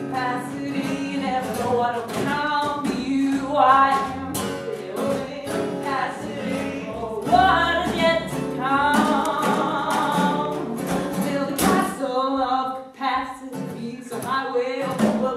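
A voice singing a drawn-out melody over a strummed acoustic guitar, a live singer-and-guitar song.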